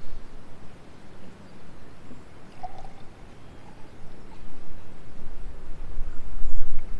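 A drink poured from a jug into a glass, under wind rumbling on the microphone that grows stronger towards the end.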